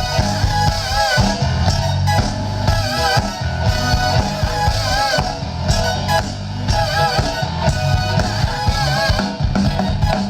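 Live funk band playing an instrumental groove: steady drums, bass and guitar with a repeating riff, heard through the concert sound system.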